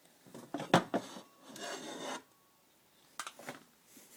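Hard objects being handled and moved on a surface: a few sharp knocks, then a scrape lasting about half a second, then more light knocks.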